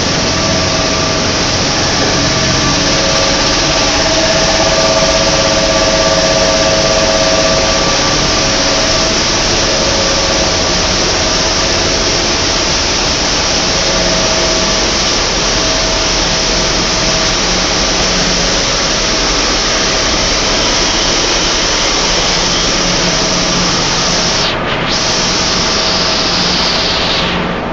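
Tissue paper production machinery running: a loud, steady mechanical hiss and rumble with a few faint steady tones, briefly dipping about three seconds before the end.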